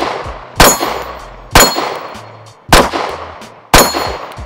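Glock 43X Gen 5 9mm pistol fired four times at about one shot a second, each sharp crack followed by a short ringing tail.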